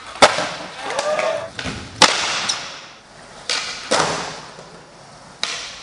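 Skateboard tricks on a smooth concrete floor: about five sharp cracks of tails popping and boards slapping down on landing, with wheels rolling on the concrete between them.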